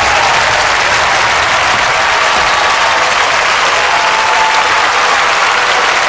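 A large crowd applauding at the close of a pop song, a dense, steady clapping.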